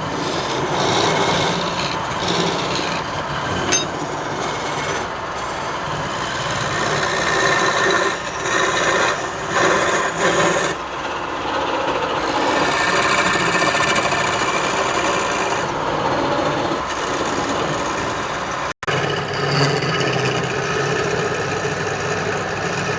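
Woodturning on a lathe: a tool scraping and cutting against spinning wood in a continuous rasping hiss that swells and eases, broken by a split-second gap about three-quarters of the way through.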